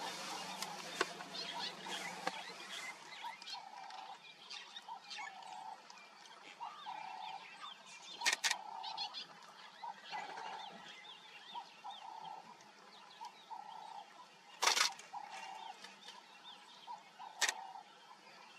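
Animal calls: a run of short, bird-like notes repeating about once a second, with many higher chirps over them. Three sharp clicks stand out, about eight seconds in, near fifteen seconds, and near the end.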